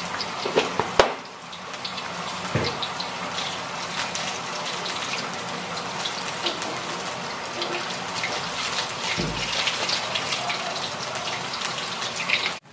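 Thin mushroom-vegetable broth bubbling steadily in a wok over a gas flame as it comes to the boil, with a sharp knock about a second in.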